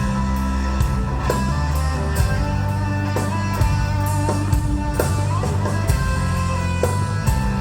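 Rock band playing live: electric guitar lines over a sustained bass line and a steady drum beat with cymbals.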